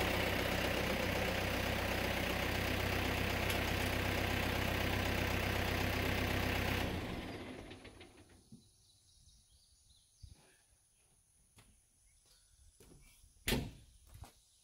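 Engine running steadily at idle, fading away about seven seconds in. After that, near silence with a few faint ticks and one sharp click near the end.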